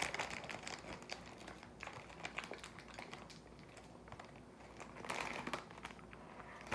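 Faint crinkling and rustling of packaging being handled, with small clicks between and louder rustles at the start and about five seconds in.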